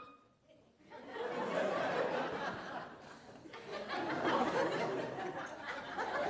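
Club audience laughing, starting about a second in after a brief hush, easing off about three seconds in and building again.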